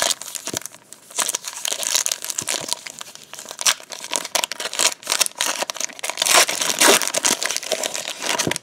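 Foil wrapper of a Topps trading card pack being torn open and crinkled by hand: a dense crackling rustle, loudest about six to seven seconds in.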